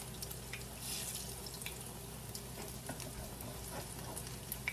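Banana fritters frying in shallow oil in a pan, a steady soft sizzle, with a few light clicks of a metal spatula against the pan.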